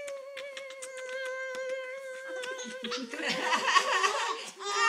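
A voice held on one steady high note, with quick smacking clicks, as a baby is nuzzled on the chest. About three seconds in, this breaks into laughter, an infant's laugh among it.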